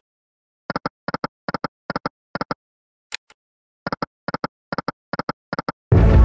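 Online slot machine game sound effects: a spin click, then five quick reel-stop clicks, one per reel; a second spin click about three seconds in and five more reel-stop clicks. Near the end a loud, rich musical effect starts as a wild symbol lands and begins to expand.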